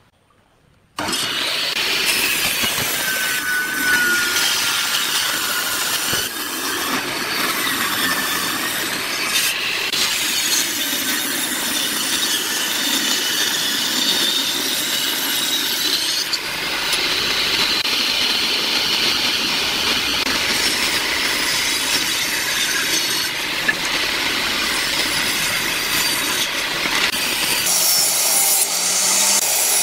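Table saw ripping wooden boards lengthwise: a steady rasping cut that starts about a second in, with a few shifts in level between passes.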